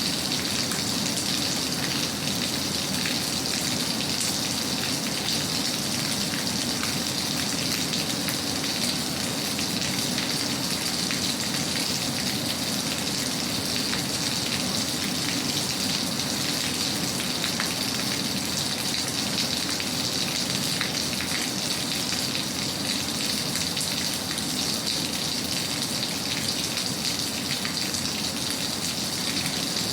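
Steady rain falling, an even hiss with fine patter of drops that stays constant throughout.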